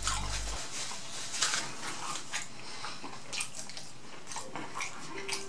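Close-miked chewing and mouth clicks of a person eating a bite of cheesy chicken quesadilla, a few short wet smacks spaced about a second apart.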